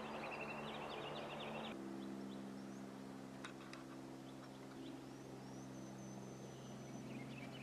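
Faint steady low hum, with small birds chirping and trilling in the background. The hum's pitch shifts about two seconds in, and a thin high whistle-like note comes later.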